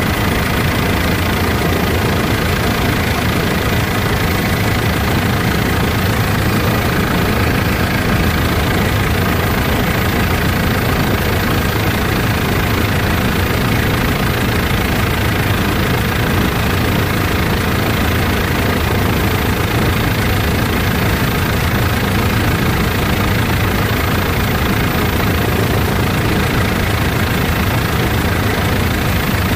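Helicopter in flight: steady engine and rotor noise that does not change.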